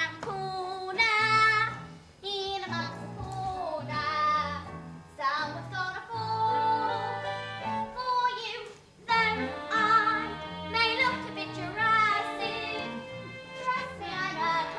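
Young performers singing a musical-theatre song over an instrumental accompaniment, a held sung melody above steady bass notes.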